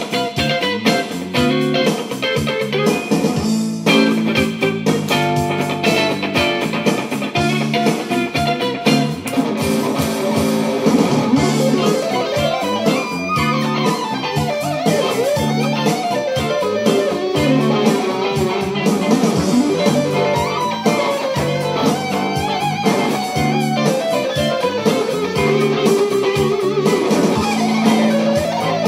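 Electric guitar with humbucking pickups playing an instrumental lead: quick runs of single notes, picked and fretted fast, sliding up and down the neck.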